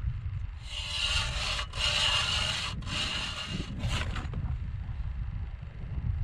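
Three rasping, scraping strokes of about a second each, then two shorter ones, over a steady low wind rumble on the microphone.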